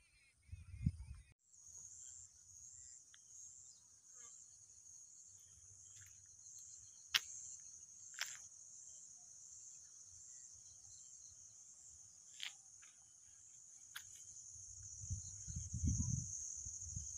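Faint, high, steady chorus of insects trilling in an even pulsing rhythm, the kind crickets make in dry fields. A few sharp clicks and some low rumbling from handling the phone come through, louder near the end.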